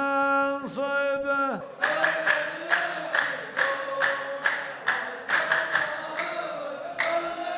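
A solo male voice holds the end of a sung line. About two seconds in, a line of men starts clapping in unison, about two claps a second, and chants together over the claps. This is the saff chorus answering the poet in a Saudi muhawara sung-poetry duel.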